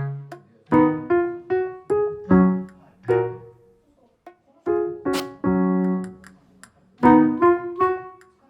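Background piano music: an unhurried melody of separate notes, each fading out, with a brief pause partway through.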